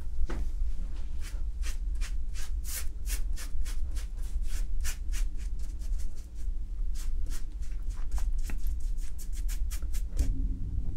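A large watercolour brush swishing back and forth across wet, textured watercolour paper while laying a wash, in quick strokes about four a second with a brief pause near the middle. A steady low hum runs underneath.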